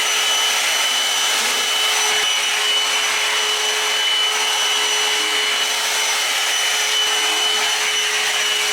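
Handheld hair dryer switched on suddenly and running steadily, a loud rush of air with a steady whine over it.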